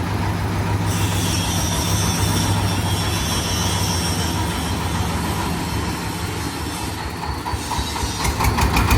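30 hp Dong Feng diesel engine running steadily, driving a corn-sheller with a conveyor: a steady low hum under an even mechanical noise.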